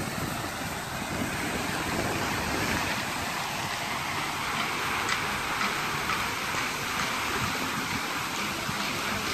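Fountain water jets spraying and splashing down into the pool: a steady rushing hiss.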